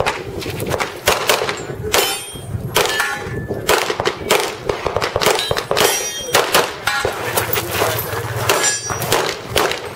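Handgun fired in rapid strings of shots at a practical-shooting stage, a dozen or more sharp cracks in quick pairs and runs, some followed by a metallic ring of steel targets being hit.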